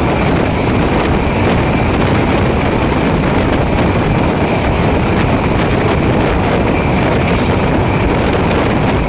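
Steady rush of wind over the microphone and running noise of a passenger train coach at high speed, heard from an open coach door.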